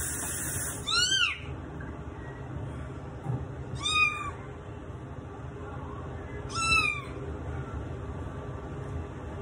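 Wet tabby kitten meowing loudly three times, a few seconds apart, each call rising then falling in pitch, in distress at being rinsed under a running kitchen tap.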